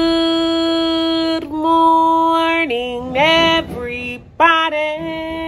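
A woman singing a few long, held notes, the first drawn out for about a second and a half and the later ones wavering with vibrato.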